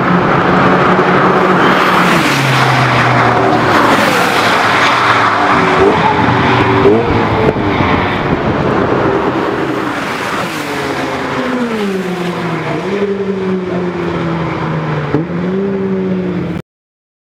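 BMW M3 GT race car with an Akrapovič exhaust running hard on the circuit. Its engine note climbs and drops sharply again and again with the gear changes. The sound cuts off suddenly near the end.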